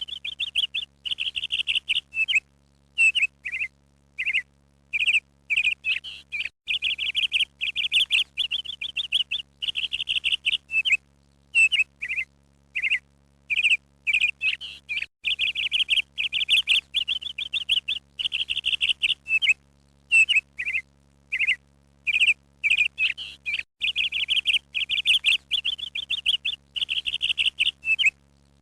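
Small birds chirping and twittering in quick runs of short, high chirps separated by brief pauses.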